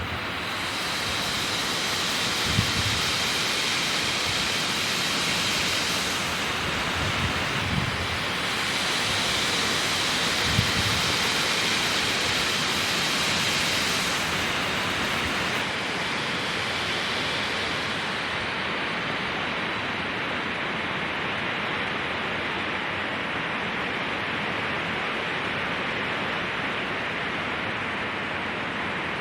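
Wind rushing through pine trees, a steady even hiss, panned back and forth between left and right for bilateral stimulation. A few low thumps come in the first ten seconds or so.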